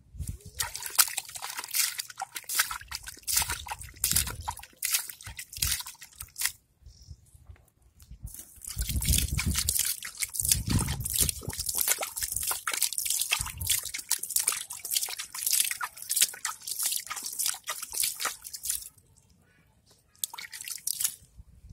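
Hands scooping wet mud and water out of a flooded hole: dense splashing and squelching in quick runs, with short pauses about seven seconds in and near the end.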